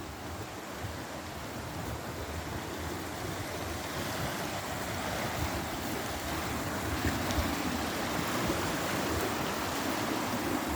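Rushing river water, a steady wash of noise that grows gradually louder.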